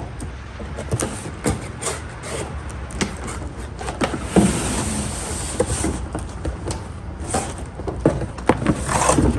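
A cardboard box being opened and its packaging handled: rustling and scraping with scattered knocks and clicks.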